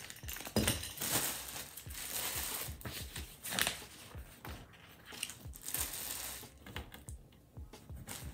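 Plastic packaging and a small bag of hardware crinkling and rustling as they are handled, with many scattered small clicks.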